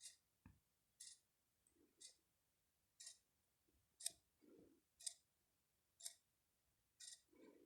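Faint regular ticking, one sharp tick a second, with a sleeping cat's soft snoring breaths about every three seconds.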